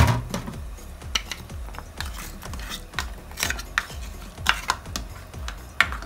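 A black cooking spoon stirring a stainless steel pot of pumpkin and piloncillo in syrup, knocking and scraping against the pot with a string of short sharp clacks. One heavy knock comes right at the start.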